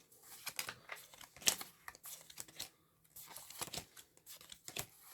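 Pokémon trading cards being handled and flipped through: a run of quick rustles and snaps, the sharpest about one and a half seconds in.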